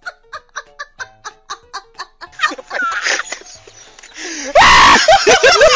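Background music of short, evenly spaced notes, about four a second, followed by a man laughing, which turns loud and hearty about three quarters of the way through.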